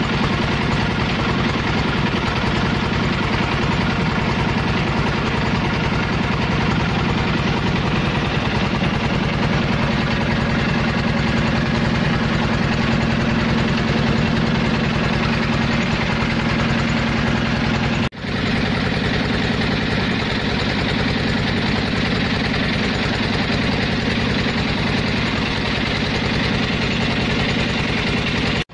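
A boat's engine running steadily and loudly at constant speed, with a steady low hum under it. The sound breaks off for an instant about two-thirds of the way through, then carries on unchanged.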